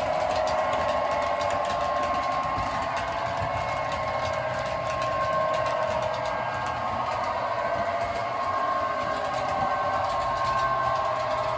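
Model trains running on the layout: a steady electric motor whine with several tones that drift slightly in pitch, along with the rolling of wheels on the track.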